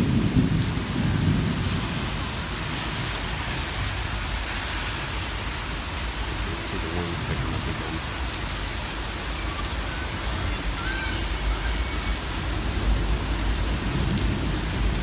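Heavy rain pouring steadily in a thunderstorm, with low rumbles of thunder: one is strongest right at the start, and another builds near the end.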